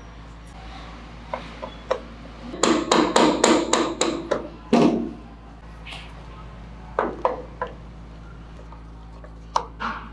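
Sharp knocks and taps on a vintage Vespa's aluminium engine crankcase during assembly. A quick run of about seven taps comes a little over two seconds in, then one heavier knock, then a few scattered clicks later on.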